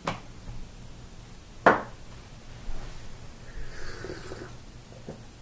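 Items being handled on a countertop: a soft knock at the start, a sharper knock a little under two seconds in, then faint rustling and a small click near the end.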